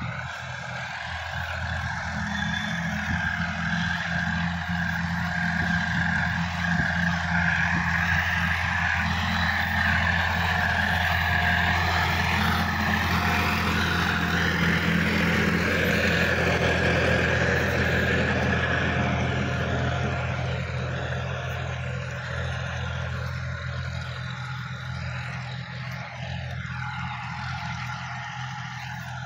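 Sonalika DI-50 RX diesel tractor engine running steadily under load as it pulls a rotary tiller through the soil. It grows louder as it comes near, about halfway through, then fades as it moves away.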